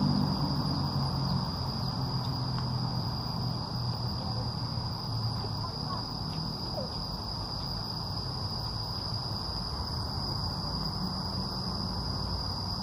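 Insects, the chorus of a shaded tropical park, droning continuously on one steady high-pitched tone.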